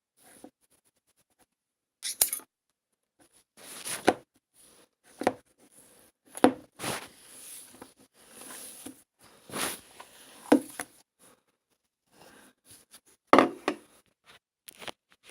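Cloud slime being squeezed and stretched by hand: irregular bursts of soft crackling and squishing with a few sharp snaps, separated by short pauses.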